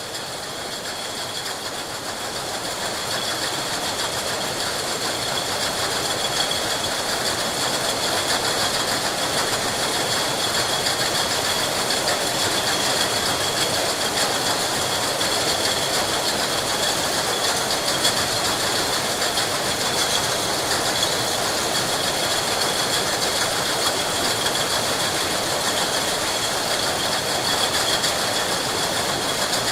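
Glass bottles clinking and rattling against one another on a factory conveyor line, a dense continuous clatter with a steady high-pitched tone running under it. It grows louder over the first few seconds, then holds steady.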